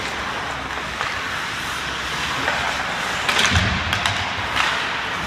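Ice hockey play in an indoor rink: a steady hiss of skates on the ice and arena ambience, with a quick cluster of sharp knocks from sticks and puck about three and a half seconds in and another single knock about a second later.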